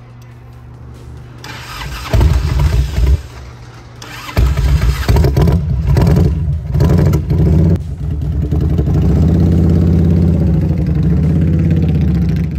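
1988 Harley-Davidson Electra Glide Classic's Evolution V-twin engine starting, catching about two seconds in. It is revved in several sharp throttle blips, then held at a long rev that rises and falls as the bike rides off.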